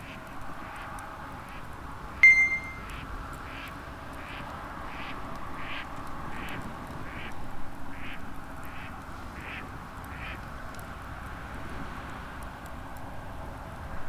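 Wood campfire crackling softly while an animal calls over and over, about three short calls every two seconds. About two seconds in, a single metallic clink rings briefly.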